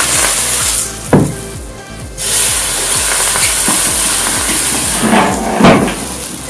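Hot knife blade sizzling and hissing as it melts through a yellow block, giving off smoke, with a sharp knock about a second in and a few more near the end as the blade meets the board.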